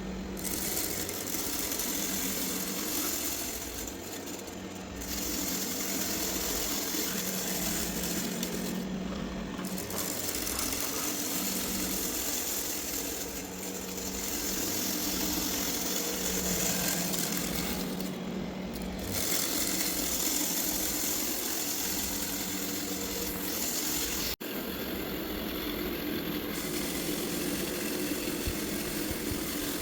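Robot vacuum running steadily, its motor humming and its brushes and suction rattling as they pick up loose grains of rice. The sound drops out for an instant about three-quarters of the way through.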